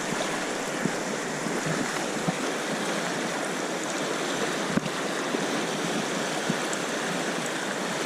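River current rushing steadily past, with a few brief knocks or splashes.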